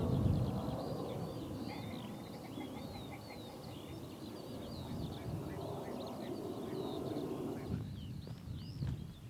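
Wind buffeting the microphone with a low rumble, under busy songbird chirping and trilling. The wind rumble cuts off suddenly near the end, leaving the birdsong clear.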